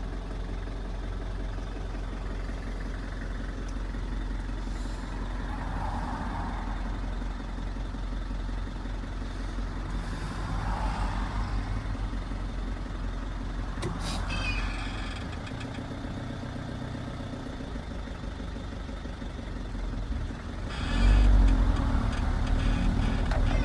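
Steady car engine and road noise while driving. A short click comes about 14 seconds in, and the low rumble grows louder from about 21 seconds in.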